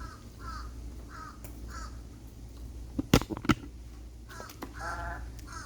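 A crow cawing: a run of short calls in quick succession, a pause, then more, with one longer drawn-out call near the end. Two sharp knocks about three seconds in are the loudest sounds.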